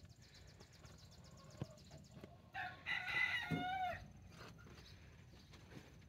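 A rooster crows once, about two and a half seconds in, a call of about a second and a half that drops in pitch at its end.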